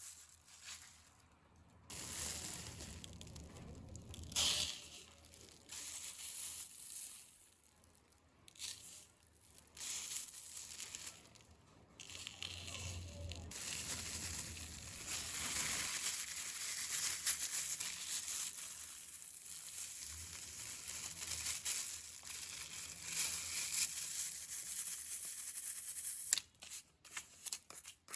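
Crinkling and tearing noises of something being handled, in short patches for the first half, then a longer continuous stretch that stops shortly before the end.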